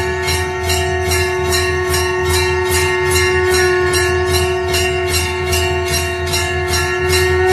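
Conch shell (shankh) blown in one long steady note while a temple bell is rung rapidly, about three strikes a second.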